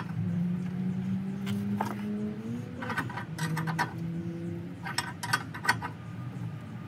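Ratchet wrench clicking in a few short runs as it turns the bolt of a torsion bar unloading tool, over a low steady droning tone.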